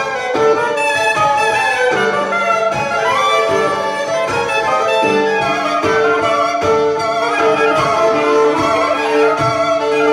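Violin and saxophone playing a free improvisation together, the violin bowed, with a short note repeated over and over in the second half.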